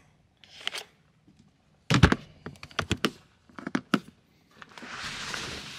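A hard-sided cooler's lid knocking shut, followed by a few sharp clicks and knocks as the cooler is closed up. A soft hiss of about a second and a half follows near the end.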